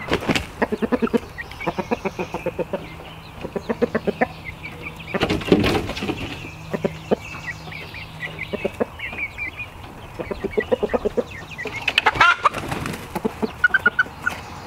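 Chickens clucking in quick repeated runs, with a brief loud flurry about five and a half seconds in and a louder call about twelve seconds in.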